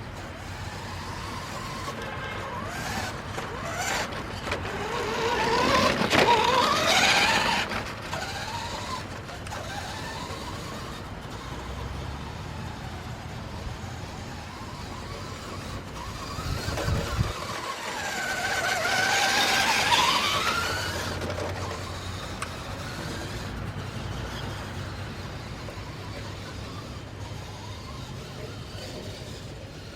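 Road traffic: two vehicles pass, each swelling up and fading away, one about six seconds in and one about twenty seconds in, over a steady background hum.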